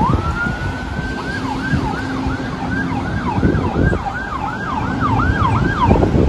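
Emergency vehicle siren: it winds up in pitch and holds, then switches to a fast yelp of rising-and-falling sweeps, about three a second, and cuts off near the end. Wind rumbles on the microphone underneath.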